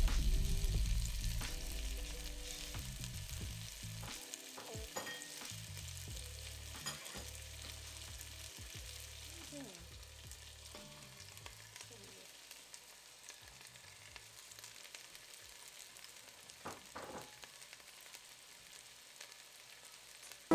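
Food sizzling and frying on a hot cooking surface: a steady soft hiss with scattered small crackles and a few light clicks.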